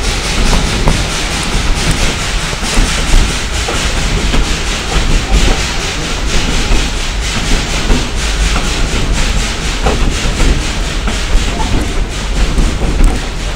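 Narrow-gauge train running along the track, heard from a passenger car: a steady low rumble and rushing noise with frequent clicks and knocks of the wheels on the rails, and a few brief squeals.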